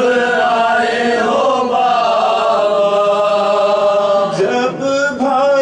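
Unaccompanied sung recitation of a marsiya, an Urdu elegy for Muharram, with long drawn-out notes that waver slowly in pitch; a new phrase begins near the end.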